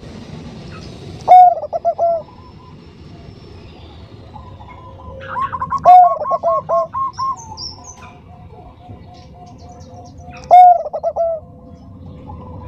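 Zebra dove (Bangkok-type perkutut) cooing: three phrases about four and a half seconds apart, each a loud opening note followed by a quick run of shorter, higher notes. Fainter rows of dove notes sound between the phrases.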